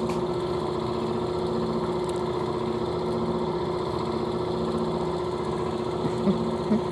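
A steady mechanical hum from a running motor, even and unchanging, with two brief faint squeaks near the end.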